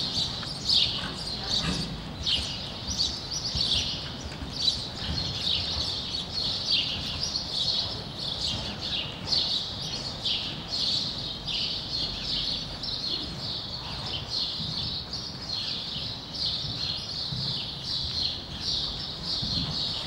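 Small birds chirping busily and without a break, high-pitched, with the soft, dull beat of a horse's hooves cantering on arena sand underneath.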